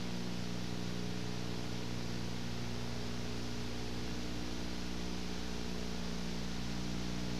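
Steady electrical hum with an even hiss underneath, unchanging throughout, with no other sound.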